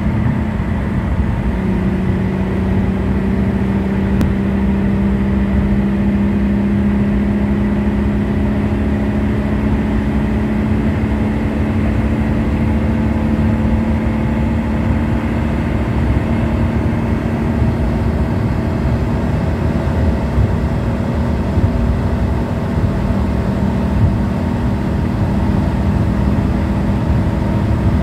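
Mercedes-Benz 280's straight-six engine, breathing through an Edelbrock four-barrel 600 cfm carburettor, pulling steadily at high speed as the car accelerates, heard from inside the cabin along with road and wind noise. The engine note rises slowly throughout.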